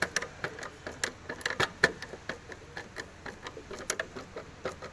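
Screwdriver tightening screws into the clear plastic seed hopper of a hand push seeder: a run of irregular small clicks and ticks as the screw is driven home.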